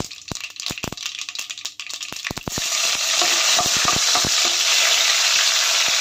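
Mustard seeds spluttering in hot oil for a tadka, a quick run of sharp pops. About two and a half seconds in, chopped garlic and curry leaves go into the oil and it breaks into a loud, steady sizzle as they are stirred with a spatula.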